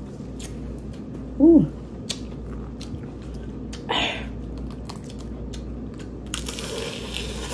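Close-miked eating sounds of cooked crawfish being cracked and peeled by hand: scattered small shell clicks and crackles, with one louder crack about four seconds in and a longer hissing rustle near the end.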